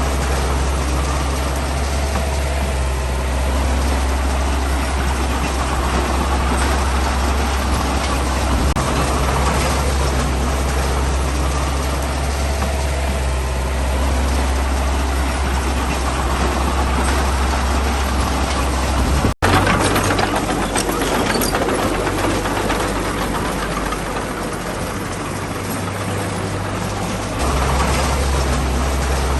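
Heavy diesel engine of earthmoving machinery running steadily with a deep hum. The sound breaks off for an instant about two-thirds of the way through, then comes back weaker, and the deep hum returns strongly near the end.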